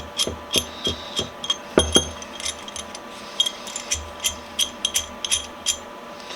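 Steel pipe wrench parts clinking and knocking together as they are handled and fitted back together: a string of sharp metallic clicks, two or three a second, some with a dull knock.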